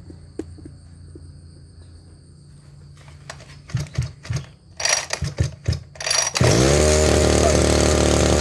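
Robin NB260 26 cc two-stroke brush cutter engine being pull-started: several quick rasping pulls on the recoil starter from about three seconds in, then the engine catches about six seconds in, revs up briefly and settles into a steady run.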